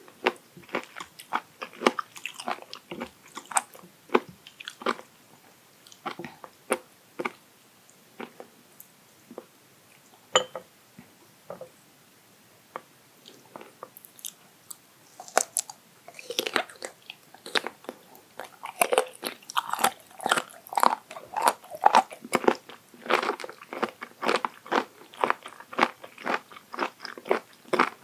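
Close-miked biting and chewing of raw abalone sashimi: a run of crisp, crunchy bites. It thins out to a few quiet chews about a third of the way in, then turns dense and crunchy again.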